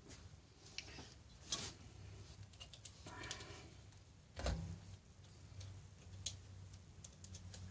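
Scattered light clicks and clinks of metal barstool parts, bolts and hand tools being handled during assembly, with one louder knock about four and a half seconds in, over a faint low hum.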